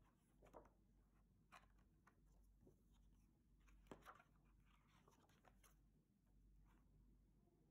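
Faint rustling and flicking of cookbook pages as they are leafed through by hand, several light page turns spread across a near-silent room.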